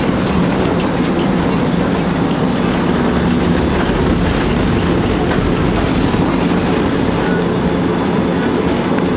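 Tatra T3 tram in motion, heard from inside the passenger cabin: steady running noise of steel wheels on the rails.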